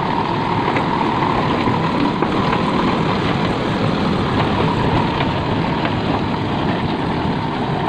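A heavy vehicle engine running steadily at idle, an even rumble with a steady mid-pitched whine running through it.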